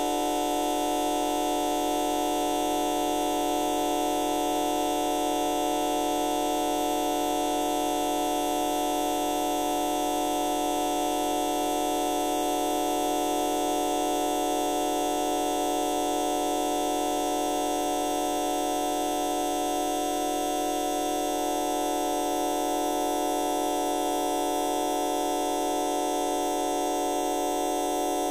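A fart sound effect time-stretched to an hour's length, heard as a steady, unchanging drone rich in overtones.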